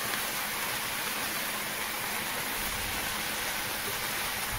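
Vegetables sizzling steadily in a stainless steel frying pan, an even hiss with no breaks.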